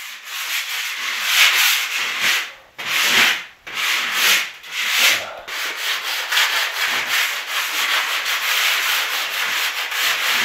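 Hand sanding a painted wooden skirting board with a sanding sponge: quick back-and-forth rasping strokes. They come in short runs with brief pauses for the first few seconds, then go on without a break.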